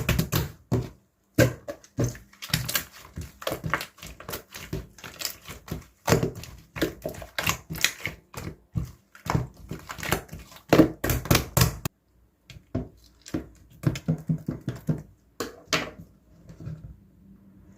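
Slime being squished, poked and stretched by hand, with quick irregular wet clicks and small air-bubble pops several times a second. The sound is softer and sparser from about two-thirds of the way in.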